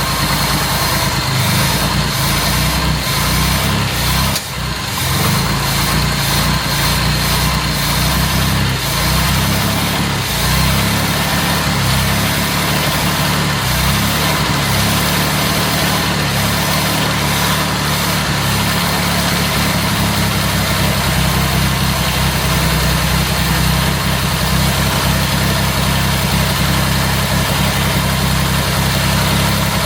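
Jaguar Mark 2's straight-six engine running roughly and unevenly, with a brief stumble about four and a half seconds in. The owner takes it for misfiring from fuel starvation, or ignition timing that is way off.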